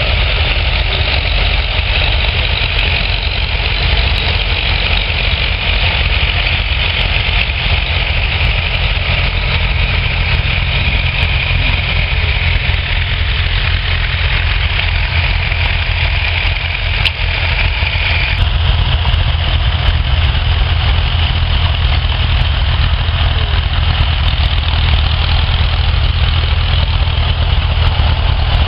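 Vintage farm tractor engine running steadily, a low continuous drone; the higher part of the sound shifts abruptly about two-thirds of the way through.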